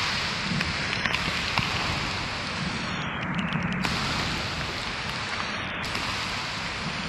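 Steady rain falling, with a few sharper drop ticks now and then.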